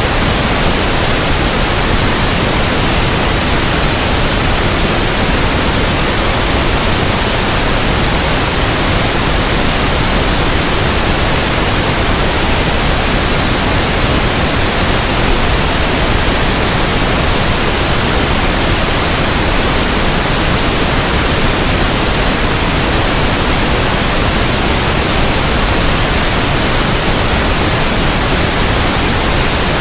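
Steady pink noise: an even, unchanging hiss spread across all pitches, with no other sound.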